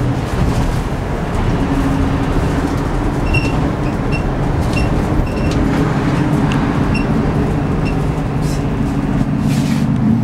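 Volvo B8R city bus's rear-mounted six-cylinder diesel engine running as the bus drives, heard inside the passenger cabin with steady road noise. A light ticking about twice a second runs from about three to eight seconds in.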